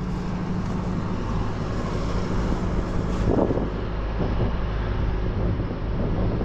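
Steady low drone of an engine running at a constant speed, with a short louder sound about three seconds in.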